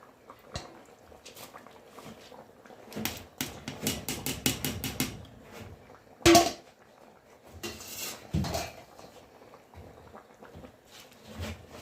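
Metal kitchenware clatter as soaked rice is added to a pot of boiling biryani gravy: scattered knocks, a quick run of taps about four seconds in, and one loud metallic clang with a short ring about six seconds in.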